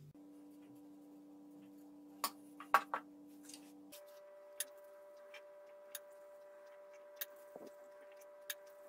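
Metal spoon clicking against a glass mixing bowl while scooping sticky curd dough: a quick cluster of clicks a couple of seconds in, the loudest near three seconds, then single clicks about every second and a half. Faint steady held tones sit underneath and shift pitch once, about four seconds in.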